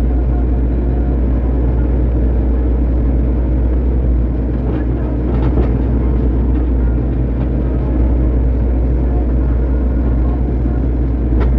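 Excavator diesel engine running steadily under load as the bucket works the dirt, heard from the operator's seat, with a few faint short clunks about five seconds in and again near the end.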